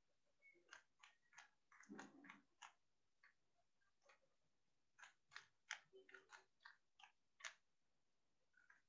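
Faint, irregular clicks and taps in two clusters, one in the first three seconds and one from about five to seven and a half seconds in, with a quiet gap between.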